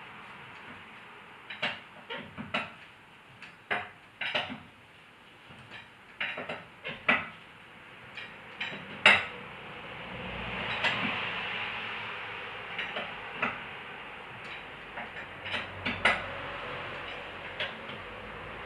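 Irregular metallic clinks and knocks of tools and wheel hardware being handled during a car tyre change, over a steady hiss.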